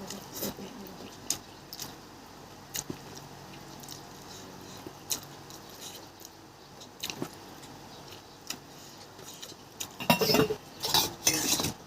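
Scattered light clinks and clicks of dishes and utensils during a meal, with a louder burst of clatter near the end.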